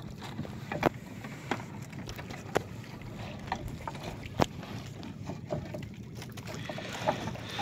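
Steady low rush of wind and water around a small wooden boat at sea, with scattered sharp clicks and knocks.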